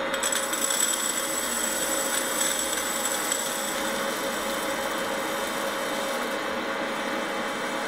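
Hot-air popcorn maker running as a coffee roaster, its fan blowing with a steady whir and a high whine, while a charge of green coffee beans is poured in and rattles around the chamber; the rattle is busiest in the first few seconds.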